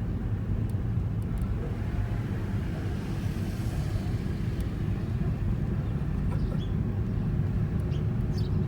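2017 Toyota Corolla iM under way: steady engine and road rumble of the moving car.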